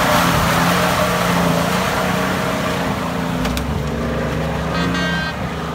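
Off-road 4x4's engine running steadily under load, with a slowly drifting pitch and a haze of noise over it. There is a sharp click about three and a half seconds in, and a brief high-pitched tone about five seconds in.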